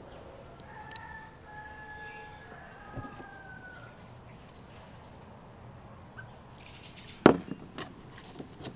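A rooster crows once in the background, one long call about a second in. Near the end a single sharp knock on the wooden table is the loudest sound, followed by small clicks and dabbing as hands work in a small wooden bowl.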